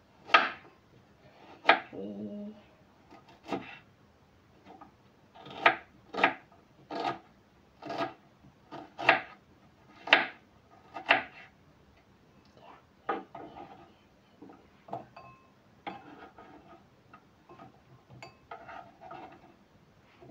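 A knife cutting an onion on a chopping board: slow, irregular knocks about one a second, loud for the first half, then softer, quicker cuts.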